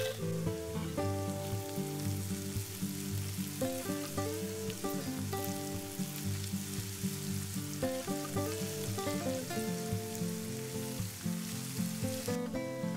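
Chopped mushrooms and carrots sizzling in hot oil in a frying pan as they are stirred with a silicone spatula, over background music. The sizzle fades out shortly before the end.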